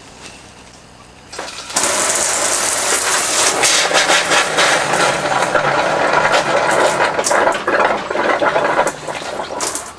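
Water and compressed air spraying out of a motorhome shower head as the hot-water pipe is blown dry with compressor air at 15 psi, starting suddenly about a second and a half in. In the later seconds it turns to irregular spitting and sputtering as the air chases out the last of the water.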